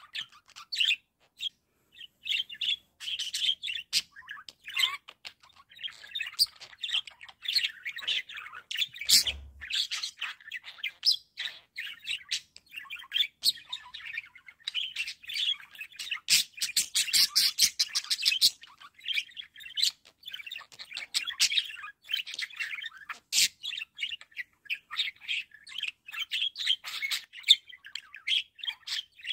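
Budgerigars warbling and chattering: an unbroken stream of chirps, squeaks and clicks, with a run of very rapid clicks about halfway through. A single soft knock about nine seconds in.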